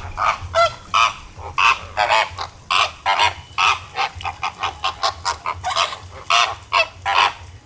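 A flock of flamingos honking: many short calls overlapping, several a second, without a break.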